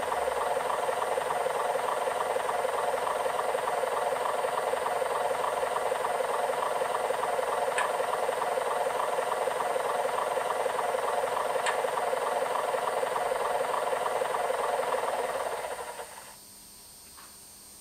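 Dapol OO gauge GWR streamlined railcar's DCC sound decoder playing a steady diesel engine running sound through the model's small onboard speaker, thin and with little bass. The sound dies away about sixteen seconds in.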